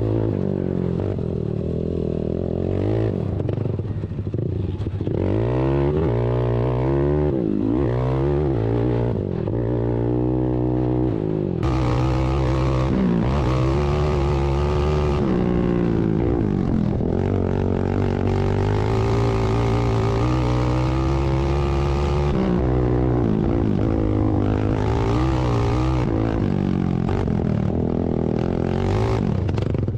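ATV engines racing on a short dirt track, revs repeatedly rising and falling as the quads accelerate and back off through the turns. The sound grows fuller and louder about eleven seconds in.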